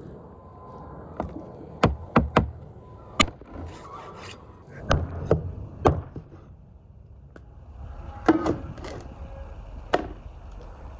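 Large knife cutting up a raw goose on a wooden cutting board: a string of sharp, irregular knocks as the blade strikes the board, with rubbing and scraping between.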